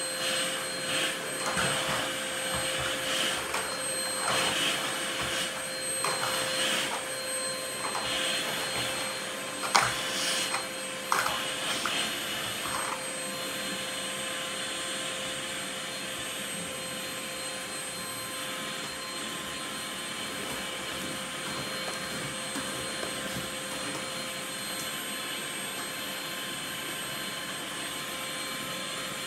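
Canister vacuum cleaner running with a steady motor whine and rush of suction. For the first dozen seconds the sound surges and scrapes unevenly as the nozzle is worked over the tiled floor, with a sharp knock about ten seconds in and another a second later; after that it runs evenly as the nozzle is pushed over a mattress.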